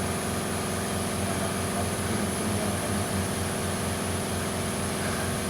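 An engine idling steadily: a low, even drone with a regular pulse.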